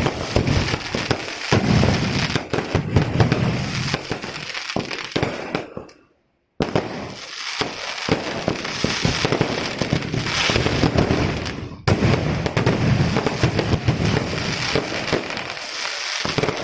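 Fireworks going off in a dense, continuous barrage of rapid cracks and bangs, which drops out completely for about half a second roughly six seconds in.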